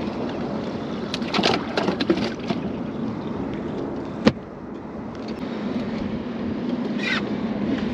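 Steady wind-and-water noise on a fishing boat, with scattered knocks and handling clatter and one sharp clack about four seconds in. A low steady motor hum runs through the later part.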